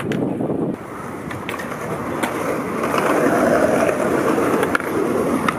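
Skateboard grinding along a concrete ledge, then its wheels rolling over pavement, growing louder, with a few light clacks.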